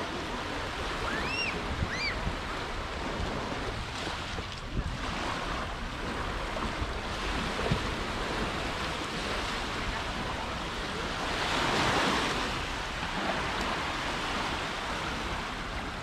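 Waves washing onto a sandy beach, with wind on the microphone; one wave swells louder about three-quarters of the way through. Two brief high calls sound just after a second in.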